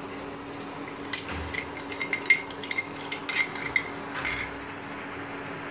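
A run of light clinks and knocks as a spatula hits a glass bowl and a cooking pan while tamarind water is tipped and scraped into the pan of chicken.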